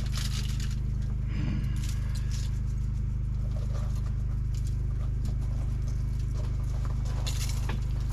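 A seasoning shaker rattling as pork rub is shaken onto ribs, light scattered clicking, over a steady low hum.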